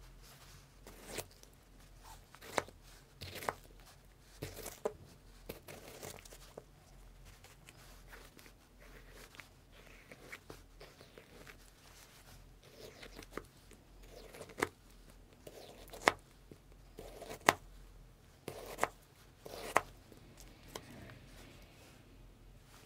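Irregular sharp knocks and taps, about ten of them, the loudest two about two-thirds of the way in, with quieter tearing and crinkling noises between them.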